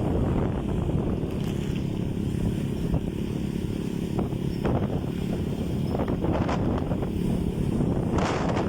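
Boat motor running steadily, with wind buffeting the microphone and a few brief sharper sounds.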